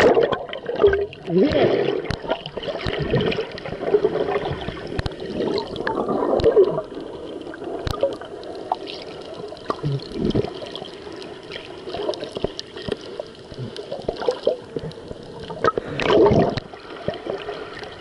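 Sea water heard from underwater: muffled gurgling and bubbling with uneven surges and splashes, and a louder surge of bubbling near the end.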